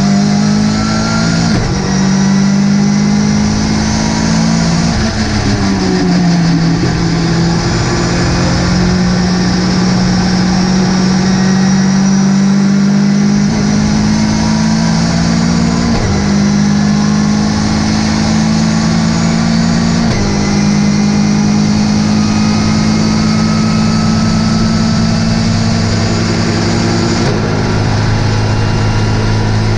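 Ginetta GT5 race car engine running hard at racing speed, with a steady high hiss over it. Its pitch falls and glides about five seconds in, then steps at several gear changes later on.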